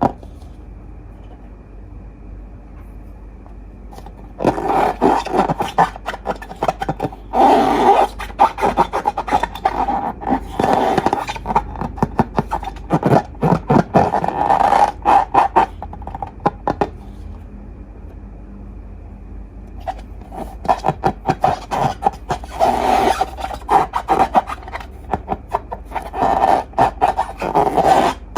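Slime being worked by hand: a dense run of small sticky crackles and clicks. It starts about four seconds in, stops for a few seconds past the middle, then resumes.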